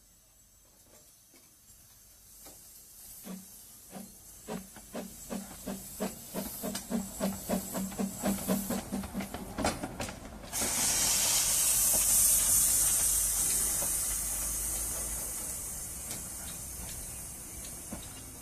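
Kerr Stuart 'Stanhope', a 1917 narrow-gauge saddle-tank steam locomotive, chuffing away under steam, its exhaust beats getting quicker and louder as it picks up speed and draws near. About ten seconds in the beats stop and a loud steam hiss starts suddenly, then slowly fades as the engine moves away.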